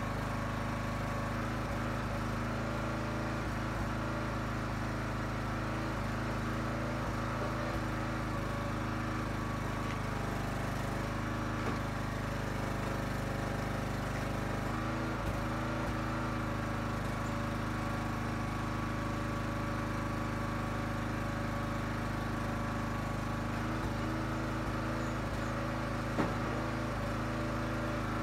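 Huskee 35-ton log splitter's small gas engine running steadily, with a few sharp single knocks from the ash blocks as they are worked on the splitter.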